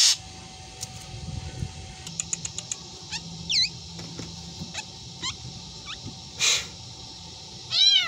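Black drongo giving a varied run of calls: a short harsh call at the start, a quick series of clicks, downward-swooping whistles, another harsh call about six and a half seconds in, and a rising-and-falling meow-like call near the end, mimicking a cat.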